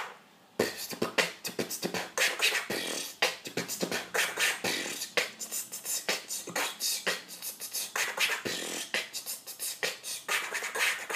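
Vocal beatboxing into a cupped hand: a fast beat of mouth-made kick, hi-hat and snare sounds with imitated record-scratch sounds mixed in. It starts about half a second in after a brief pause.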